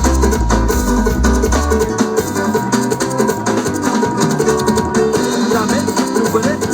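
Loud recorded music with a fast, dense shaker-like rhythm and plucked-string parts; the heavy bass drops out about two seconds in.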